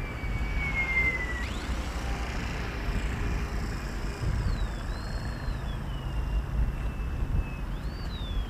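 An XK A600 DHC-2 Beaver mini electric RC plane's motor and propeller whining as it flies past. The high whine slides down, then rises and falls twice, with throttle and with the plane's passes. Under it is a steady low rumble of wind on the microphone.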